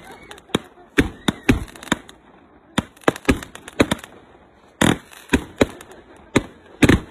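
Fireworks going off: a rapid, irregular string of sharp bangs and cracks from aerial bursts, with the loudest about five seconds in and near the end.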